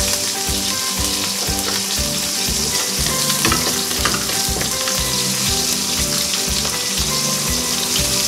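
Chicken leg quarter searing in very hot oil in a steel pan: a dense, steady frying sizzle.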